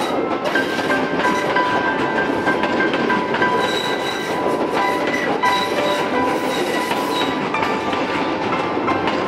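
Sri Lanka Railways passenger coaches rolling past close by: a steady loud rumble and clatter of wheels on the rails, with thin high metallic squeals coming and going.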